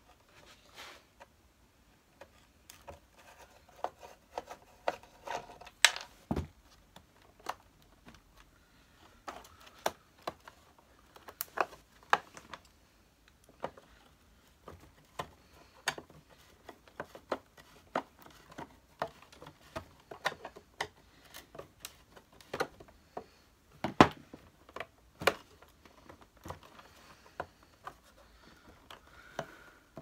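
Irregular clicks, taps and knocks of a screwdriver and hands working at a stuck screw in the base of a Dr Nilco Fakir upright vacuum cleaner, with a sharper knock about six seconds in and the loudest one about 24 seconds in.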